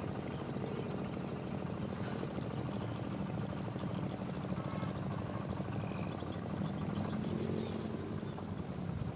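Insects such as crickets chirring in a steady, high-pitched drone, over a low steady rumble.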